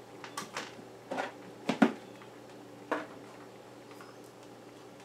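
A measuring cup scooping sugar from a plastic bin and tipping it into a stainless steel saucepan: a handful of short knocks and scrapes, the loudest a little under two seconds in.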